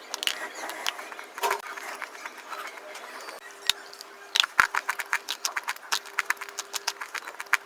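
Fast, crisp crunching: a run of sharp crunches that grows denser and louder a little past the middle, about four a second, over a faint steady hum.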